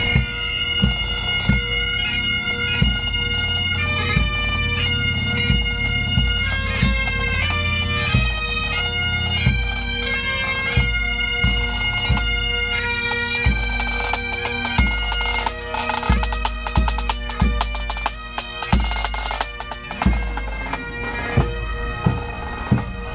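A pipe band playing: bagpipes sound a melody over their steady drone, with drum beats at an even pace. Rapid snare-like drumming joins in during the second half.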